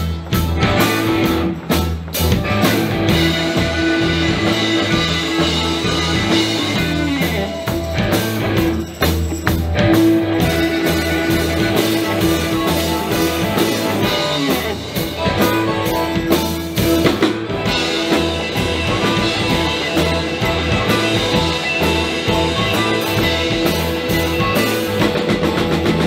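Live rock band playing an instrumental stretch: electric guitar, bass and a drum kit keeping a steady beat, with long held notes from an amplified harmonica played into a vocal microphone.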